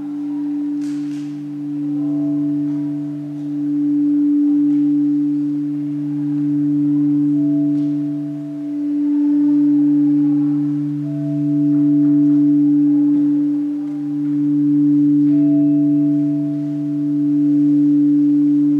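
Sustained singing bowl drone: a steady low ringing tone that swells and fades every two to three seconds, with faint higher tones coming and going.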